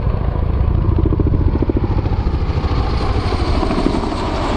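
Boeing Chinook helicopter passing close at speed, its tandem rotors making a fast, heavy blade-slap thudding, with a rushing sound building higher up in the second half.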